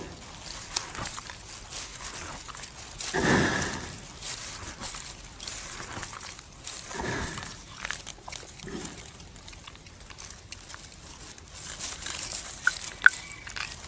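Buffalo chewing its cud: wet, irregular chewing with small clicks, and two louder, longer sounds about three seconds in and again about seven seconds in.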